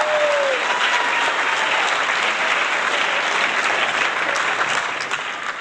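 Crowd applause sound effect: many hands clapping steadily, tapering off near the end.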